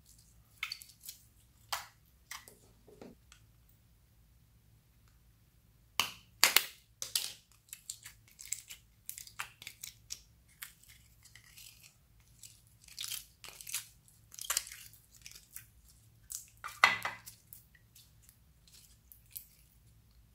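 Clear glitter slime being stretched, squeezed and poked by hand, giving irregular sticky clicks and crackling pops. The loudest clusters come about six seconds in and again near seventeen seconds.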